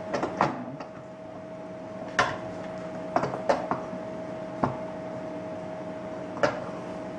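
About seven scattered sharp clicks and knocks, like small objects handled and set down on a table, over a steady electrical hum.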